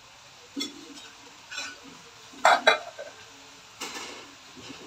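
Metal kitchen utensils clinking against cookware: a few scattered clinks, the loudest a quick pair about two and a half seconds in.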